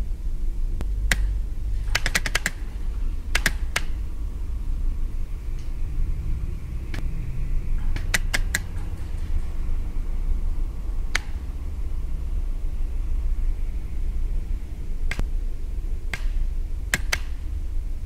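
Electromechanical relays switching the lamps of a light installation: sharp, irregular clicks, some single and some in quick runs of three or four, over a steady low hum.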